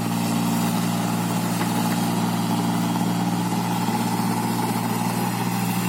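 Engine of a rice-processing machine running steadily at a constant speed, a low even hum, with its tone shifting slightly near the end.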